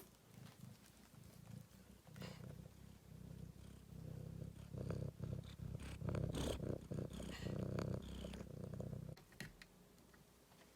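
Domestic cat purring, a low rhythmic rumble that grows louder a few seconds in and stops near the end.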